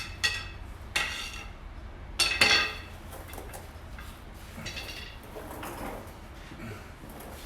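Metal clanking and ringing as steel exhaust parts and tools knock together while the exhaust hangers are being bent and levered into place. There are three sharp, ringing strikes in the first three seconds, then a couple of lighter clinks.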